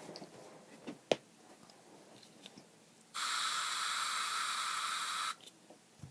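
Aerosol can spraying: one steady hiss of about two seconds that starts and stops abruptly, after a few light clicks and one sharper click about a second in.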